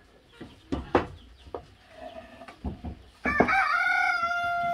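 A rooster crowing: one long call that starts with a short wobble about three seconds in and then holds steady. It is preceded by a couple of light knocks from wooden hive parts being handled.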